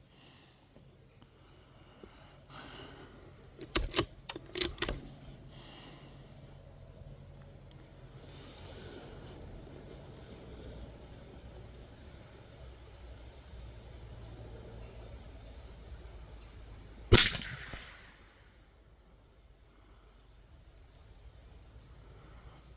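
A single .22 LR rifle shot about two-thirds of the way through, sharp and loud, over a steady high drone of insects. A few sharp clicks of rifle handling come about four seconds in.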